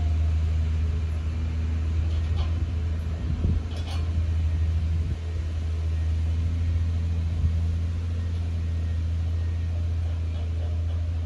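An engine idling steadily, a low rumble, with a couple of faint metallic clinks a few seconds in.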